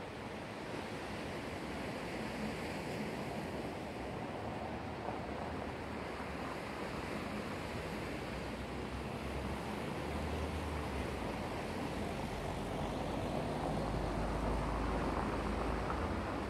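Black Sea waves washing on the shore in a steady rush, with a low rumble that grows louder in the second half.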